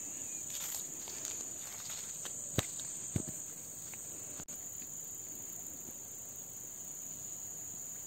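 Crickets trilling steadily at one high pitch, with two short knocks a little over halfway through.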